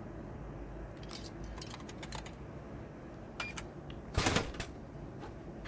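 Scattered light clicks and ticks, with one louder short burst of noise a little past four seconds in.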